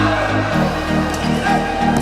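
Background music with a steady beat; the bass line changes about half a second in.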